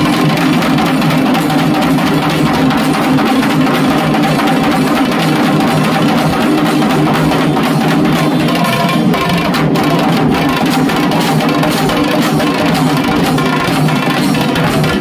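Several dhak, Bengali barrel drums, beaten with sticks in a fast, continuous ensemble rhythm, with a small bell-metal kansar plate struck along with them.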